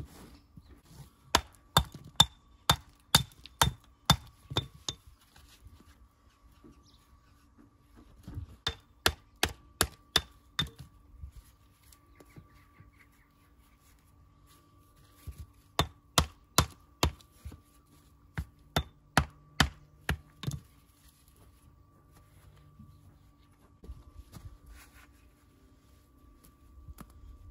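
Hammer striking building stone, trimming stones for a stone wall: three runs of sharp, ringing strikes about two a second, with pauses between them. A faint steady hum lies underneath.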